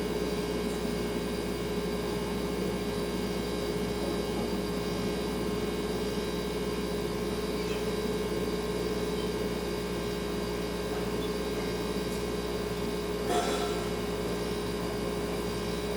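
Refrigerator running with a steady hum of several fixed tones over a soft noise bed. A faint short knock about thirteen seconds in.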